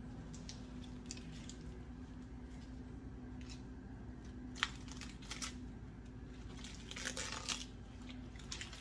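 Collard green leaves being twisted and torn apart by hand, with soft scattered crinkling and ripping rustles and a sharp click about halfway through, over a low steady hum.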